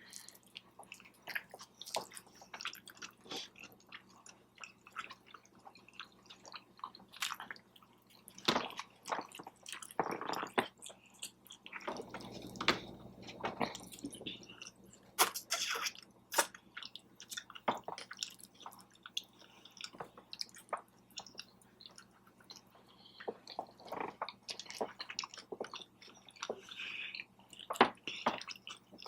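Close-miked chewing and biting of venison sloppy joe sliders and tater tots: irregular wet smacks, squishes and small crunches.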